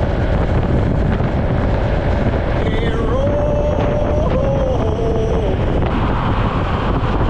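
Wind buffeting the microphone of a camera on a moving Honda ADV 160 scooter, a steady rush over engine and road noise. A wavering pitched sound rises and falls for a couple of seconds midway.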